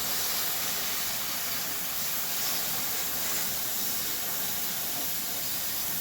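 A loud, steady hiss, even and unchanging, with most of its energy in the high range.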